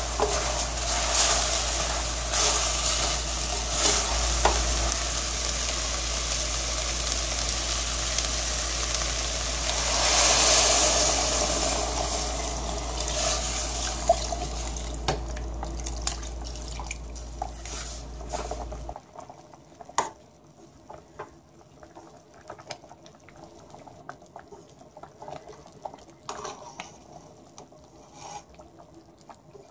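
Chicken and rolled oats sizzling in a stainless steel wok while a spatula stirs and scrapes, the sizzle swelling about ten seconds in. It cuts off suddenly about two-thirds of the way through, leaving only quiet clinks and scrapes of a ladle in the pan.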